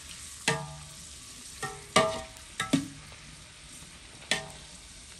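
Chopped onions frying in ghee in a large metal pot, a low sizzle under about half a dozen sharp, ringing clinks of a metal spoon striking the pot as they are stirred to brown them.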